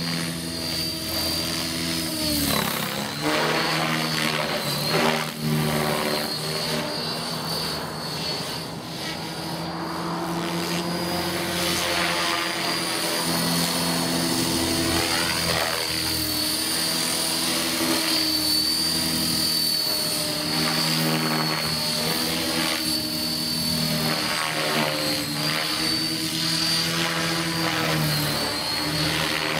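Radio-controlled model helicopter flying overhead: a steady high whine of its motor and rotor that rises and falls in pitch as it manoeuvres, dipping briefly in loudness partway through.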